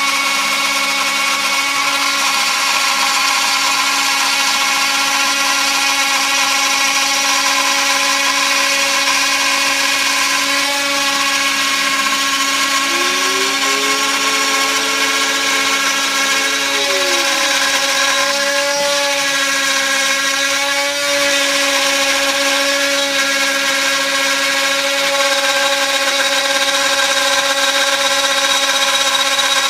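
Small TTA 3020 desktop CNC router milling a wooden floorboard: the spindle runs with a steady whine over several pitches, and the stepper-motor tone glides up and back down about halfway through as an axis speeds up and slows.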